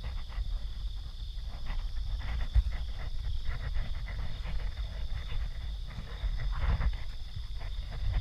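Steady high-pitched chorus of night insects, with irregular rustling and low rumble from walking through vegetation and a single thump about two and a half seconds in.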